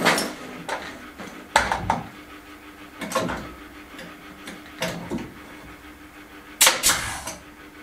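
Pneumatic nail gun firing nails into a timber trim strip, about five sharp shots a second or two apart, the loudest a quick double shot near the end.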